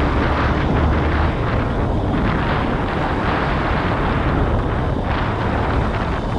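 Honda CB190R motorcycle on the move, its single-cylinder engine running steadily under heavy wind rush on the microphone.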